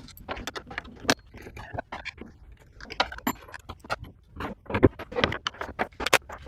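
Irregular clatter of hard objects being handled: uneven knocks, clicks and short rattles, some sharper and louder than others.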